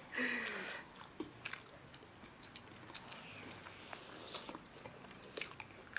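A person chewing and biting food with quiet wet mouth clicks, most likely homemade mini pizza. A short louder noisy sound comes in the first second.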